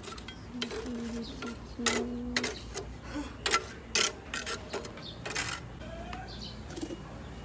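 Steel mason's trowel working mortar on concrete hollow blocks: a run of sharp clinks and scrapes, irregularly spaced, thinning out in the last couple of seconds.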